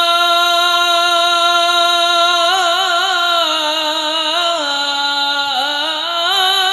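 A solo voice singing an Arabic devotional qasidah, holding one long steady note for about two and a half seconds, then winding through ornamented turns with a step down in pitch about five and a half seconds in.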